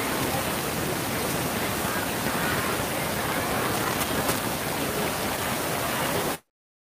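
Steady rushing noise with faint, indistinct voices under it. The audio cuts out to dead silence about six seconds in.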